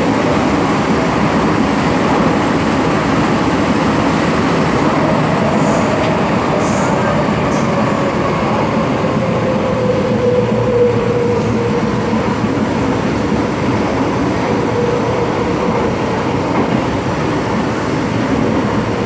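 MTR M-train carriage running, heard from inside the car: a steady rumble and rush of wheels on track. A faint whine slides down slightly in pitch over the first ten seconds or so, then holds.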